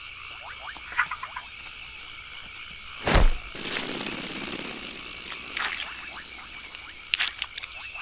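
Tropical rainforest night chorus of frogs and insects: a steady high insect drone under many short chirping frog calls. About three seconds in comes a sudden loud thump, followed by a brief rustling swish, and there are sharper clicks twice near the end.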